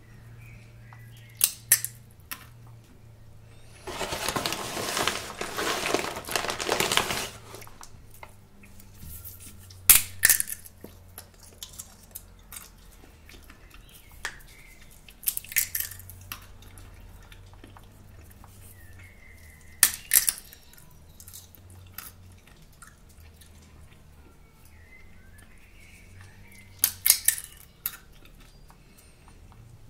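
Roasted salted sunflower seeds being cracked open between the fingers: short, sharp shell cracks at intervals, several times. About four seconds in comes a few seconds of dense crinkling and rustling from the plastic seed packet.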